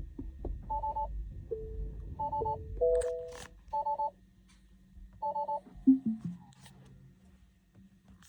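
Electronic two-tone beeps from a 2024 Tesla Model 3 reversing, repeating about every one and a half seconds, with a few other short chime tones near three seconds and a low falling tone near six seconds.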